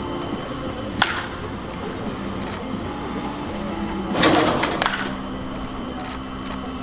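Two sharp cracks, typical of a baseball striking a bat or a glove: one about a second in and one near five seconds. A brief noisy rush comes just before the second crack.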